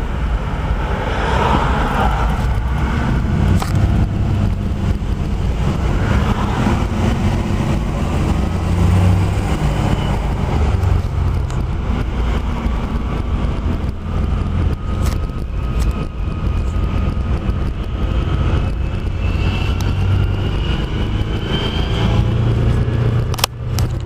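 Car on the road: a steady low rumble of engine and road noise with a faint rising whine at times, cutting off suddenly at the end.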